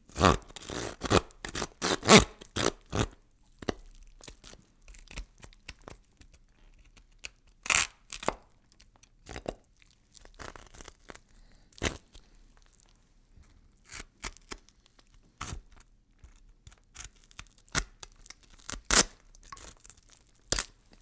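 Horror sound effect: a run of irregular sharp cracks and crunches, tearing-like, dense for the first few seconds and then scattered, with a few louder snaps.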